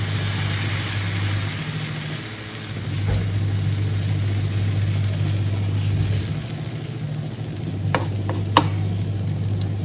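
Gram-flour and oats batter sizzling in hot ghee on a pan as a ladle spreads it around, scraping across the pan, with a couple of sharp clicks of the ladle near the end. Under it, the induction cooktop's steady low hum drops out briefly about two seconds in.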